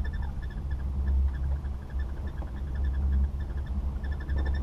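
Wind rumbling on the microphone of a camera riding a chairlift. Faint runs of rapid high-pitched squeaks or chirps come and go over it.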